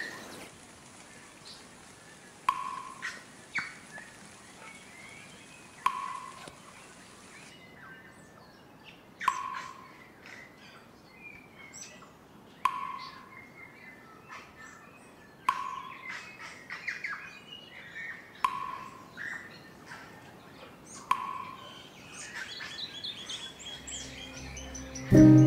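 A bird calling over and over, a short call that drops in pitch about every three seconds, with fainter chirps in between. Music comes in near the end.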